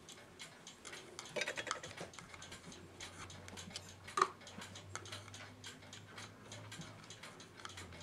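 Faint, steady ticking of a mechanical clock, with small metal clinks as steel hemostats pick tiny brass clock bushings out of their box. One sharper click comes about four seconds in.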